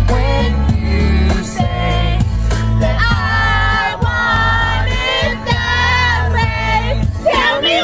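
Pop song with a sung melody over a steady beat and bass.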